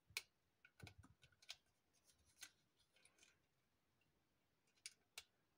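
Faint, scattered clicks and crackles, about eight in all, of hands working a rolled plastic-bottle piece and wire.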